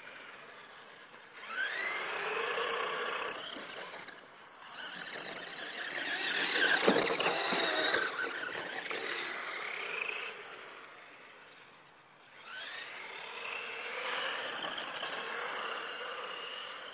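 Electric motor and drivetrain of a 1:10 HIMOTO EMXT RC monster truck whining in three runs, the pitch sweeping up each time the truck speeds away. The loudest stretch is about halfway through.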